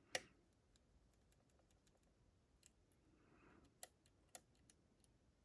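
Faint, sparse metallic clicks of a lock pick and tension wrench working the pins of a Nagasawa pin-tumbler lock: a sharper click just after the start and a few more about four seconds in.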